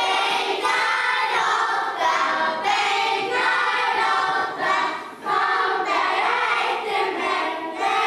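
Children's choir singing a song together in unison, phrase by phrase, with short breaths between lines.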